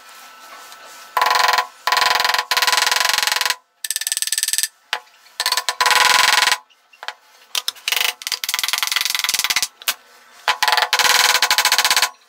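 Hammer tapping metal door pins into pre-drilled holes in the edge of a white wooden cabinet panel. It comes as five runs of rapid, light taps with short pauses between them.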